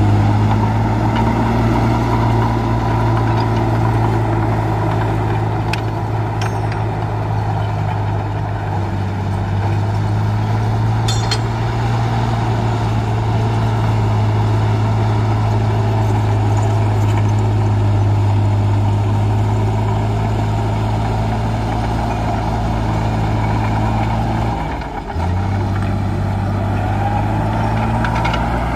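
Heavy diesel engine of earthmoving machinery running steadily under load. The note drops briefly about 25 seconds in and then picks up again, with a few faint clicks along the way.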